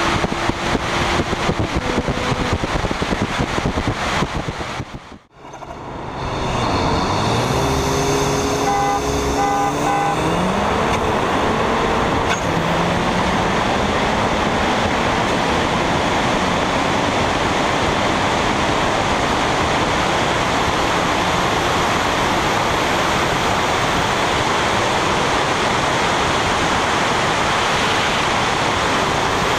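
Wind rushing over a car-mounted camera at speed, with a car's engine climbing in pitch through the gears under hard acceleration for a few seconds, and three short beeps in the middle of it. Steady wind and road noise at high speed fill the rest.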